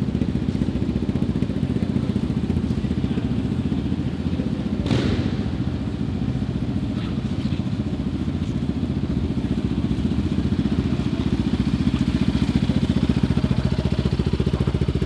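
Yamaha Raptor 700 quad's single-cylinder four-stroke engine, fitted with a Yoshimura full exhaust, running steadily at low revs with no big revving. There is a brief knock about five seconds in, and the engine gets a little louder in the last few seconds.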